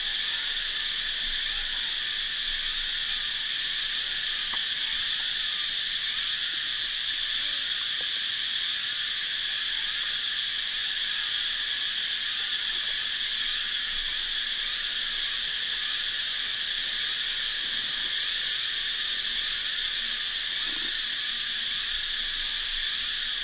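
Steady, high-pitched chorus of insects droning without a break, with a few faint clicks now and then.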